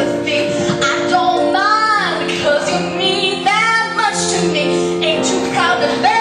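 A woman singing a musical-theatre number over instrumental accompaniment, her voice sweeping up and down on held notes.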